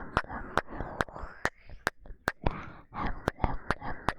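Rapid kiss sounds made with the lips close on a 3Dio binaural microphone: a quick run of wet lip smacks, about three a second, with breathy noise between them.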